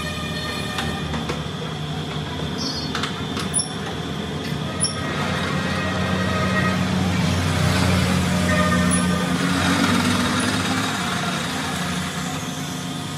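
Metal lathe running, spinning a brake drum in its chuck: a steady motor and gear hum that grows louder partway through. Two sharp clicks come a little over a second apart.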